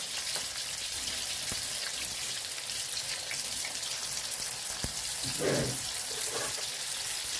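Spring rolls shallow-frying in hot oil in a stainless steel pan: a steady sizzle with a few sharp pops.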